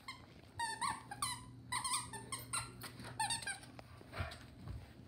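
Plush squeaky toy squeaking over and over as a beagle bites and chews it: quick clusters of short squeaks that slide down in pitch, dying away after about three and a half seconds.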